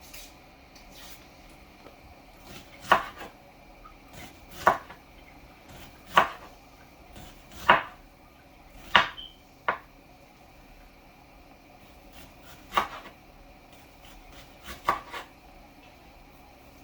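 Knife chopping on a cutting board: single, separate strokes about one every second and a half, about eight in all, with a longer gap before the last two.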